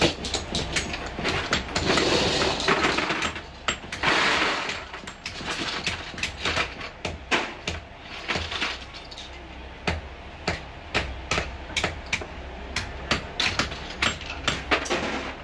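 Hand hammer striking steel lock plates and pins on a metal block: a long run of sharp metallic taps, some in quick runs and some spaced out, with louder metal clattering about two and four seconds in.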